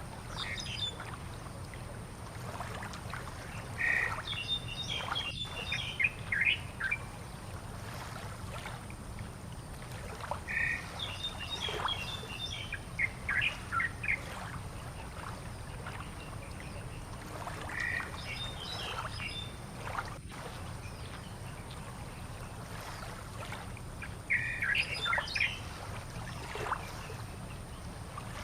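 Birds calling in four short bouts of quick chirps and squawks, over a steady low rumble.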